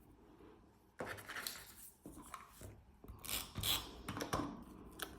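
Paper rustling and scraping as small cut paper pieces are handled and pressed into place on a scrapbook page, in a run of short noisy bursts starting about a second in.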